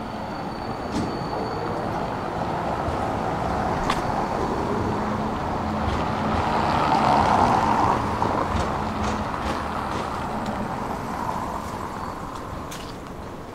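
Tram running on its rails, the rumble and wheel noise swelling to a peak a little past halfway and then easing off, with a few sharp clicks.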